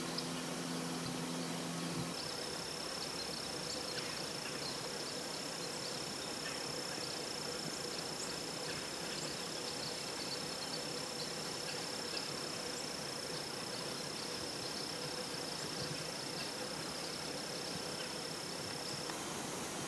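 An insect trilling in one steady high note, starting about two seconds in and stopping shortly before the end, over a steady hiss. A low hum sounds for the first two seconds.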